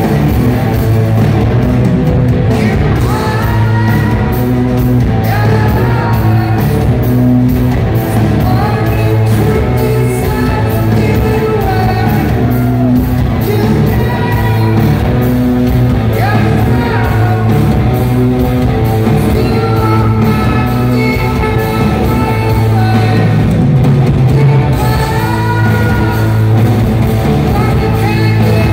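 Live rock band playing with distorted electric guitars, bass and drums, and a male lead vocal singing over them.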